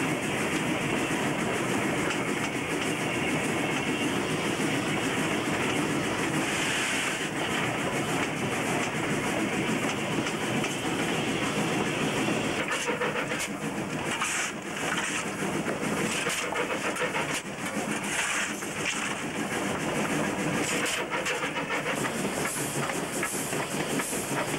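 Steam locomotive running along the line, heard from on board: a steady running noise with the clickety-clack of the wheels over rail joints.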